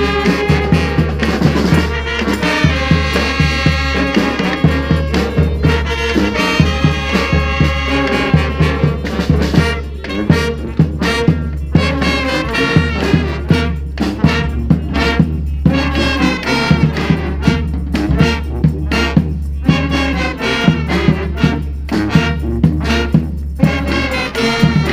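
Brass street band playing, with trumpets and trombones over a steady drum beat. The horns hold long notes in the first half, then play shorter figures over punchy, evenly spaced drum hits.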